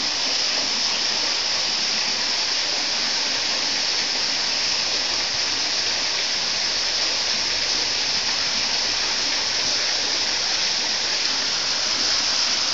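A waterfall rushing steadily, an even hiss of falling water.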